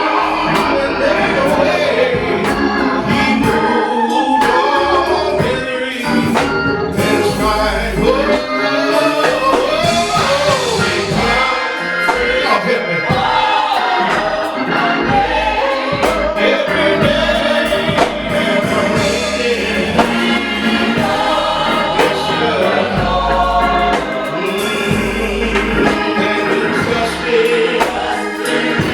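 Gospel choir singing over organ and band accompaniment.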